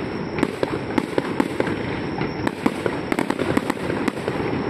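Aerial fireworks bursting: sharp cracks and pops in quick, irregular succession, several a second, bunching together about three seconds in.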